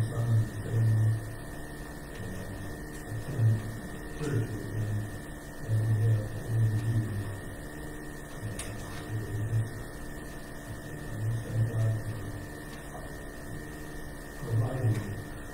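An electrical buzz from the sound system cuts in and out in short stretches under faint, muffled speech from someone off the microphone, with a steady high whine.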